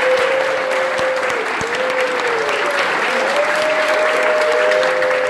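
Audience applauding steadily, with long held whooping cheers over the clapping.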